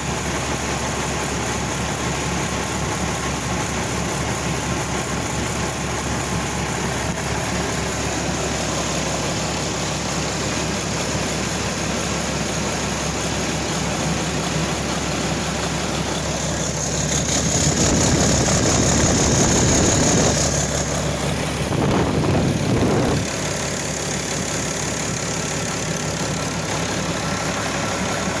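2009 Cummins ISL 8.9-litre turbocharged six-cylinder diesel engine running at idle during a test run. It runs steadily, swells louder for a few seconds past the middle, and swells again briefly soon after.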